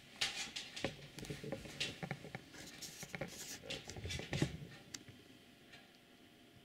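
Light rustling with scattered clicks and taps in a small room, thinning out after about five seconds.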